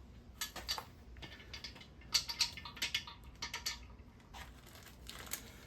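Irregular light clicks and rattles of small engine parts being handled and set down.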